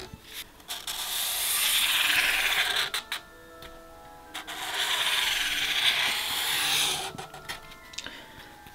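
Felt-tip permanent marker scratching across corrugated cardboard in two long drawing strokes, each lasting a couple of seconds, with a short pause between them.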